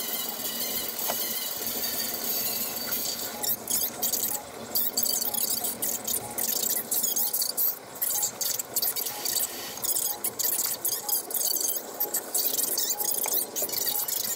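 Large aluminium pot of rice porridge bubbling on a gas stove over a steady hiss, with irregular splashy bubbling bursts from about three seconds in.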